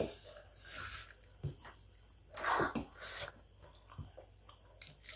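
Close-miked chewing and mouth sounds of a person eating rice and fish by hand, with scattered small clicks and one louder moist burst a little after two seconds in.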